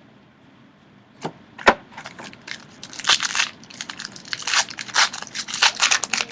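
Plastic wrapper of a trading card pack being torn open and crinkled. It starts with a couple of sharp snaps about a second in, then runs into fast, dense crackling.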